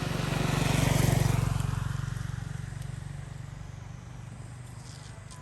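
A motor vehicle passes by: engine hum swells to its loudest about a second in, then fades away gradually.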